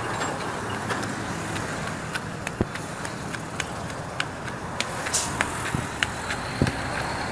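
Steady motor-vehicle running noise, engine and road hum, with scattered short sharp clicks.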